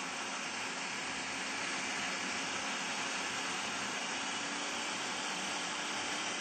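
Food processor running steadily, its blade pureeing chopped red bell pepper, garlic and lemon juice into a wet paste: a steady motor hum under an even whirring rush.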